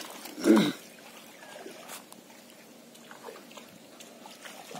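A person's short call about half a second in, then faint trickling of pond water.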